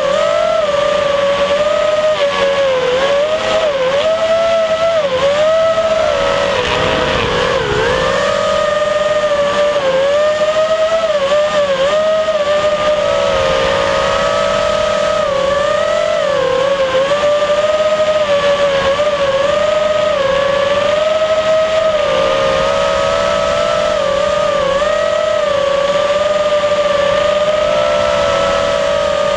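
FPV racing quadcopter's brushless motors and propellers whining continuously, the pitch dipping and rising again and again as the throttle changes.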